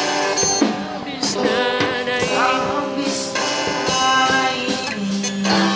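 Live band playing a Filipino pop-rock song: a singer's voice over strummed acoustic guitars, electric guitar and drums.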